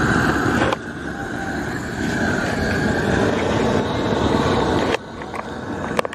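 LPG gas torch burning with a steady rushing hiss as its flame is held on the paint of a steel bicycle frame. The sound drops abruptly about a second in and again near the end, followed by a few sharp clicks.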